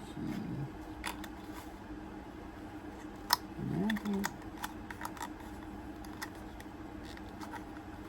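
Scattered sharp clicks and taps of small flashlights and their packaging being handled, the loudest about three seconds in, over a steady low hum.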